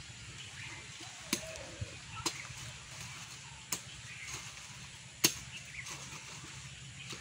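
A large knife chopping at ginger plants and soil: five sharp, separate strikes at uneven intervals, the loudest about five seconds in.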